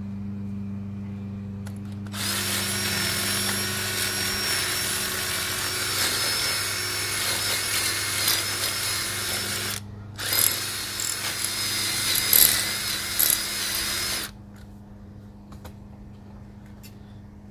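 Cordless drill motor running steadily with a high whine for about eight seconds, stopping briefly, then running again for about four seconds.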